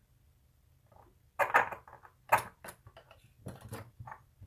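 Digital calipers and a small metal workpiece handled and set down on a stone countertop: a run of sharp clicks and clatters, the loudest about a second and a half in and again near two and a half seconds.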